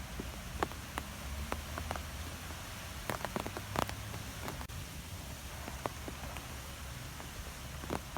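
Wind blowing through trees: a steady hiss of moving foliage over a low rumble, with many scattered sharp ticks and taps that come thickest about three to four seconds in.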